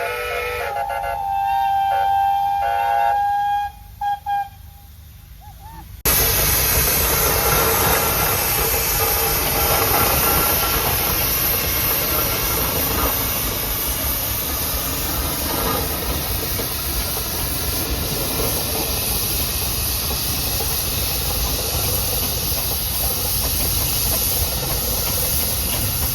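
Steam traction engine's whistle blowing for about the first four seconds, cut by a couple of short breaks. About six seconds in, a loud, steady hiss of escaping steam starts abruptly and keeps going.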